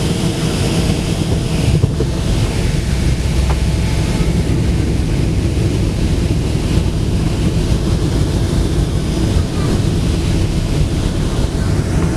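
Cabin noise of a Boeing 757 rolling along the ground after landing: a steady rumble and rush of air with a faint engine hum underneath.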